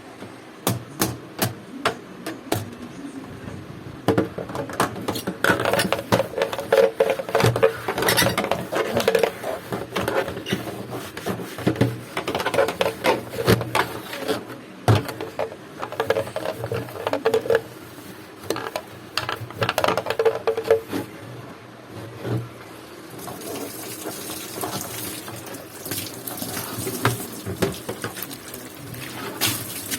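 Water running and splashing in bursts, mixed with many sharp knocks and clatters, as a washing machine tub is rinsed out. A steadier run of water sounds in the last few seconds.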